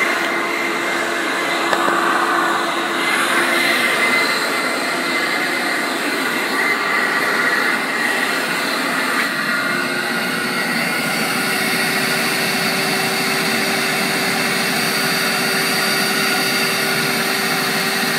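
Vacuum motors of a Savage 1 ETM carpet extractor (two Lamb 117500-13 motors in parallel) and a Mytee Air Hog booster running steadily, pulling air through 215 feet of 2-inch hose under high lift. A steady rushing whine with a faint hum that steps up slightly in pitch about ten seconds in.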